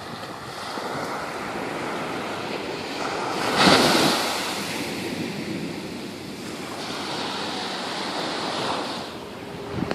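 Small ocean waves breaking and washing up a sandy beach: a steady surf wash, with one louder wave breaking about three and a half seconds in.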